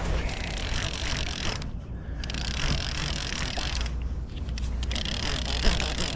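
Fishing reel being worked against a hooked catfish: a steady mechanical clicking and whirring of the reel's gears, breaking off briefly twice.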